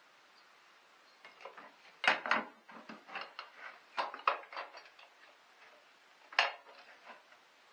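Hand-handled plastic and metal parts in a car's engine bay clicking and clattering in irregular knocks. The loudest knocks come about two seconds in and again about six and a half seconds in.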